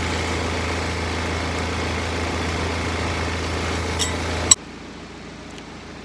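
A steady engine-like motor hum that cuts off suddenly, with a sharp click, about four and a half seconds in.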